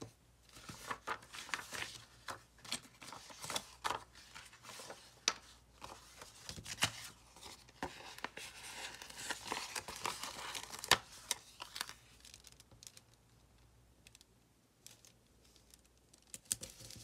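Paper stickers being peeled from their backing sheet and pressed onto a planner page over a plastic sheet: crinkling, crackling and scraping handling noise, quieter for a few seconds near the end.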